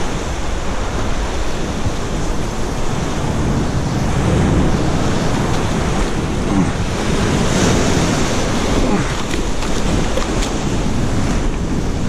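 Ocean surf washing and surging steadily against the shore, with wind buffeting the microphone.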